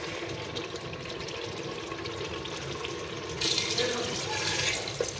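Hot water pouring from a jug into an aluminium pressure cooker of fried kidney beans and masala. The pour starts about three and a half seconds in.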